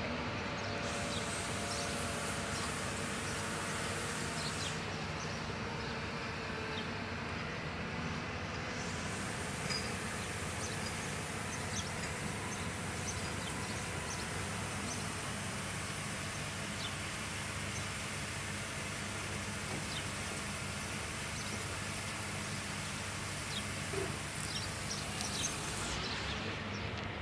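Steady low mechanical drone with a few light clicks and taps scattered through it.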